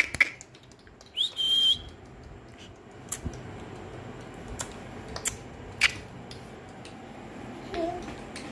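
A short, high whistle-like tone lasting about half a second, about a second in, with scattered light clicks and taps through the rest, and a brief small voice near the end.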